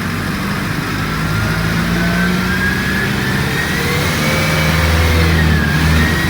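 Mercedes-Benz OF-1722M bus running under way, its engine pulling steadily and getting a little louder. Over it a thin high whine climbs in pitch, dips briefly near the end and rises again.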